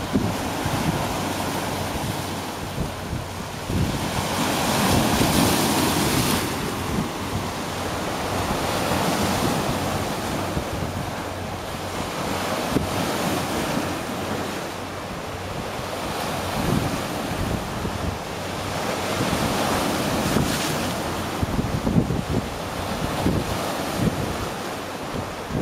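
Boat wake waves breaking and splashing over shoreline rocks, swelling and easing in repeated surges, with wind buffeting the microphone.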